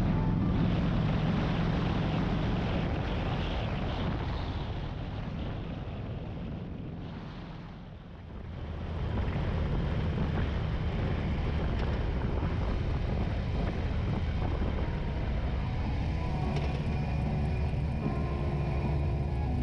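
Harley-Davidson V-twin motorcycle engine running on the move, with wind noise on the microphone. The sound fades to a low point about eight seconds in, then comes back and holds steady.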